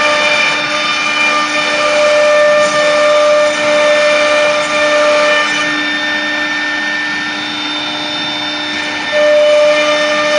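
CNC router running, a steady whine with several pitched tones over a rough cutting or motor noise. The level dips for a few seconds past the middle and comes back up sharply near the end.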